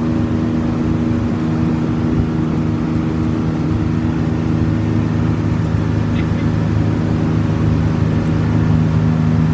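Motorboat engine running steadily under way, a constant low drone that gets slightly louder near the end.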